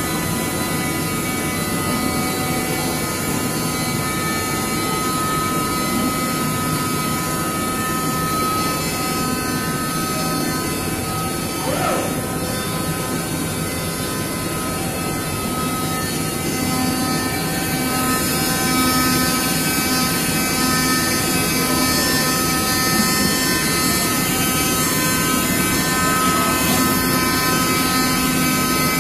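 SINAJET flatbed CNC cutting machine cutting KT foam board: a steady whirring drone with several steady whining tones from its motors.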